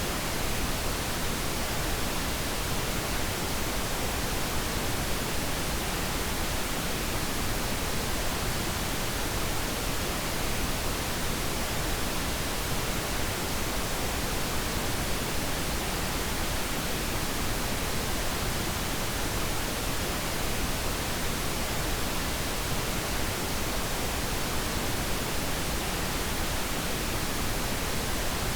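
Steady, unchanging hiss of synthetic colour noise played as a sleep aid, spread evenly from low to high pitch with no changes or events.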